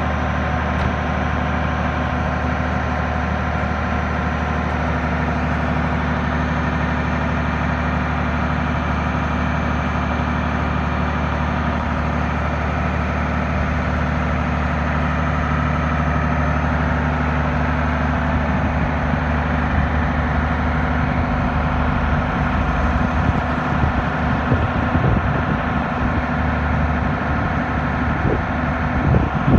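Mercedes-Benz Unimog U2150L's diesel engine running steadily while the aerial platform's outrigger stabilizer legs are lowered. Uneven low rumbles join in over the last several seconds.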